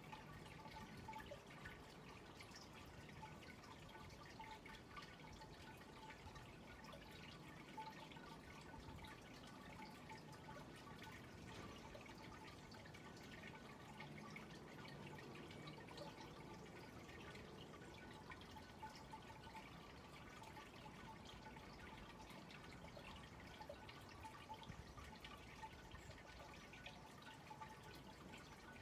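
Near silence: faint outdoor ambience with a few soft scattered ticks.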